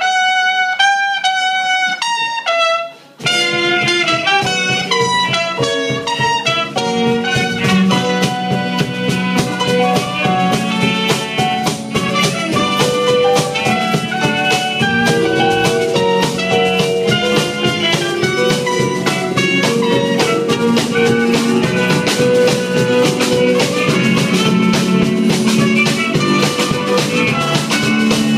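Live band music: a trumpet plays a melody alone for about three seconds, then the rest of the band comes in with drum kit beneath the trumpet lead.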